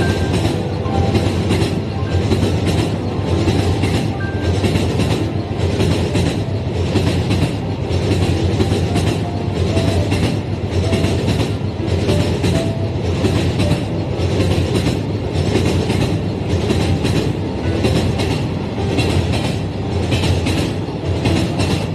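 Toy electric freight train's container wagons rolling past on plastic track, the wheels clicking over the rail joints in a steady rhythm of about two clicks a second.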